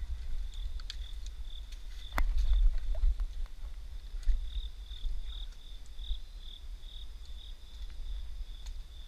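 Crickets chirping, a steady high pulsing trill, over a low rumble. A sharp click about two seconds in, followed by a second or so of louder rumble.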